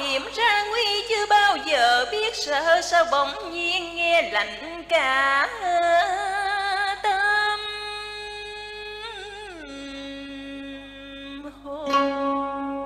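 A long, wordless cải lương vocal phrase sung with heavy vibrato, sliding and ornamented notes, ending in a held note. About twelve seconds in, a plucked-string accompaniment comes in.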